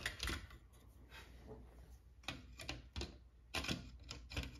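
Screwdriver turning a tight screw in a plastic telephone base: a few light, sharp clicks and taps at uneven intervals, most in the second half.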